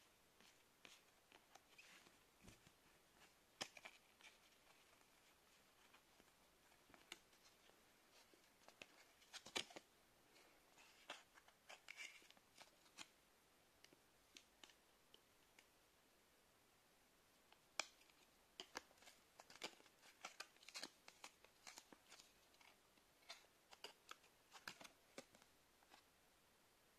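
Faint, scattered clicks and soft rustles of counterfeit Pokémon trading cards being handled and slid over one another, with a few sharper snaps among them.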